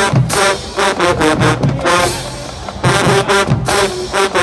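HBCU marching band playing a stand tune: loud brass led by sousaphones, in short punchy rhythmic phrases with sharp percussive hits.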